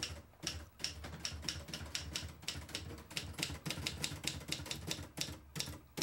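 Manual typewriter being typed on: quick, uneven key strikes, several a second, with a brief pause near the end.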